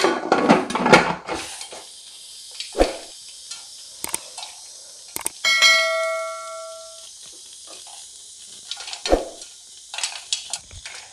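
Aluminium pressure cooker lid clattering as it is set and locked onto the pot, then a steady sizzle of hot oil inside the closed cooker with a few single popcorn kernels popping. About halfway through, a bell-like chime rings for a second or so.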